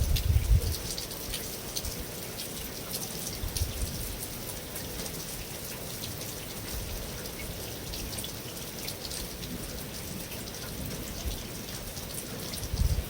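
Steady rain falling on a metal roof: a dense hiss full of small drop ticks. A low rumble comes in the first second and again near the end.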